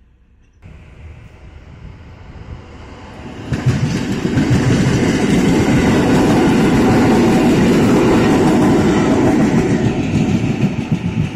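Electric multiple-unit passenger train approaching and passing close by. The noise builds from about half a second in, is loudest through the middle, and starts to fade near the end.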